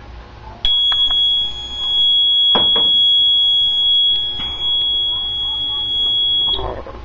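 Fire alarm control panel going into alarm from a smoke detector: its sounder gives one steady high-pitched tone that starts abruptly about half a second in and cuts off near the end. There are a couple of knocks partway through.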